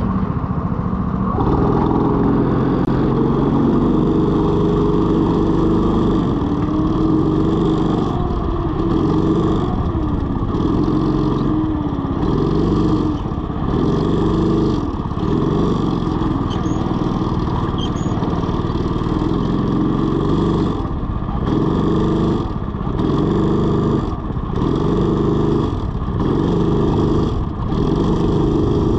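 Go-kart engine running as the kart is driven, its note rising and falling with the throttle. Over the last several seconds the note drops out briefly about once a second.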